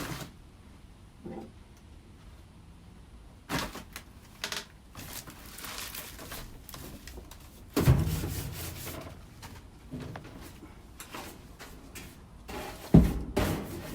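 Scattered knocks, scrapes and rustling of a broom sweeping up lint and dirt behind a washing machine, with two heavier thumps, about eight seconds in and near the end.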